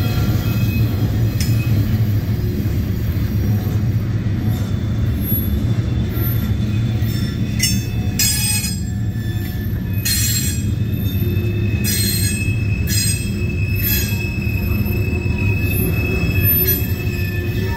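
Freight cars loaded with gravel rolling past with a steady low rumble of steel wheels on rail. High-pitched wheel squeals and screeches come and go over it, thickest between about eight and fourteen seconds in.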